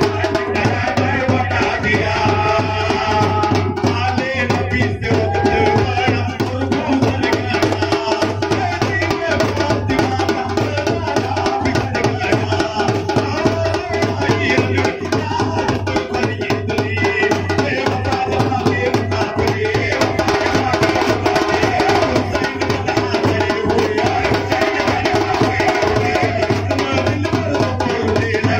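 Live drum ensemble of a large bass drum, a side drum beaten with sticks and hand-held frame drums playing a steady rhythm, with men singing over it through a microphone.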